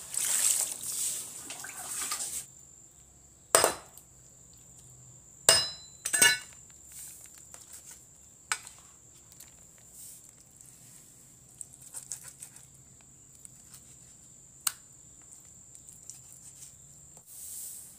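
Knife chopping turtle meat on a cutting board: a few sharp, spaced-out chops, the loudest about three and a half and six seconds in, with lighter taps between. A brief rushing noise fills the first two seconds.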